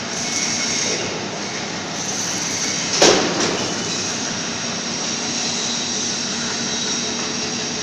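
Steady mechanical running noise of workshop machinery, with a sharp metallic clank about three seconds in and a smaller one just after.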